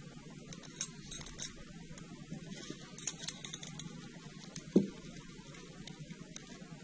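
Crimping pliers closing a metal crimp sleeve on a fishing leader, with soft metallic clicks and ticks from the tool, wire and hook being handled; one sharper click just under five seconds in.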